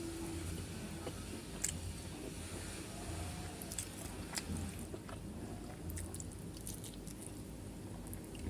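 A person chewing food close to the microphone, a soft rhythmic chew about once every second or so, with small sharp mouth clicks and smacks.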